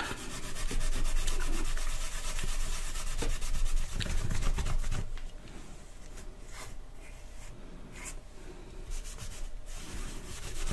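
A cloth rubbing automotive cut-and-polish compound back and forth over a perspex radio dial panel: a rapid scrubbing, louder for the first few seconds and then lighter, with a few separate strokes.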